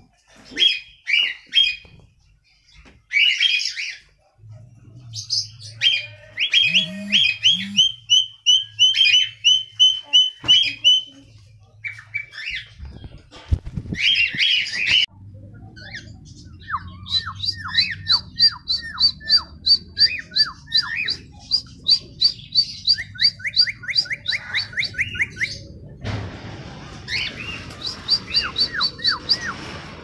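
Cockatiels calling: short squawky chirps, then long runs of quick repeated whistled notes at about three to four a second.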